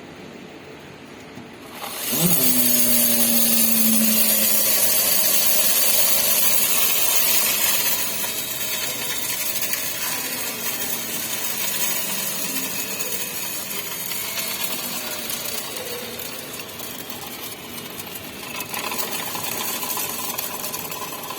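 Abnormal noise from the motor control unit of a Tata Xpres-T electric car: a loud, steady whirring hiss that starts abruptly about two seconds in, with a low tone that rises and then holds for a few seconds. It eases a little after about eight seconds, and a higher steady tone joins near the end.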